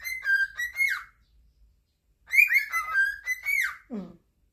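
Cockatiel whistling its song: two phrases of warbling whistles with up-and-down slides, the second starting after a pause of just over a second. A short low downward-sliding sound follows the second phrase.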